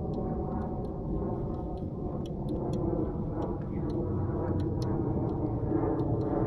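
Boat motor running at a steady pitch, with scattered faint clicks over it.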